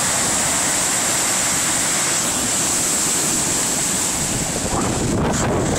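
Storm-driven lake waves breaking and surging, with steady wind rushing over the phone's microphone; about five seconds in the wind buffets the microphone harder.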